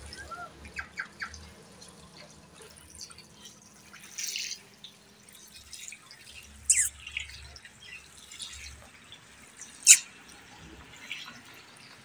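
Indian ringneck parakeet making a few soft chirps about a second in, then short, sharp, high calls around four, seven and ten seconds in, the last the loudest.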